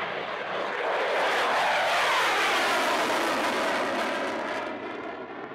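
Belgian Air Force F-16's jet engine, a Pratt & Whitney F100 turbofan, loud as the fighter passes low after takeoff and pulls up into a climb. The noise swells to a peak about two seconds in with a sweeping, phasing whoosh, then fades near the end.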